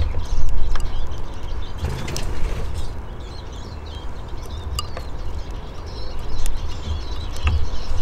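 Eurasian siskins at a feeding dish, giving short high chirps among scattered sharp clicks of pecking, over a steady low rumble.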